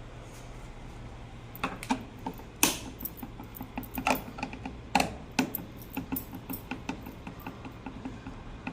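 A run of irregular clicks and knocks, uneven in spacing and loudness, starting about one and a half seconds in, over a faint steady hum.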